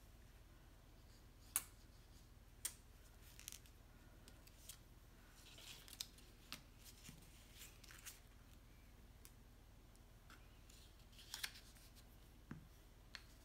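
Faint handling of cardstock paper: scattered light clicks, taps and rustles as folded card pieces are pressed and moved on a cutting mat and a glue bottle is set down and picked up.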